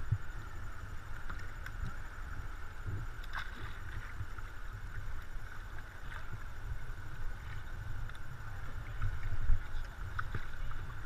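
Shallow river current washing and rippling around a drifting plastic kayak, with a low rumble of wind on the microphone. A few faint knocks, and a louder bump about nine and a half seconds in.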